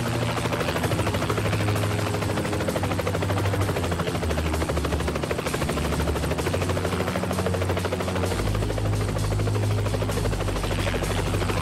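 Helicopter in flight, its rotor blades chopping fast and steadily with a continuous low drone of the engine underneath.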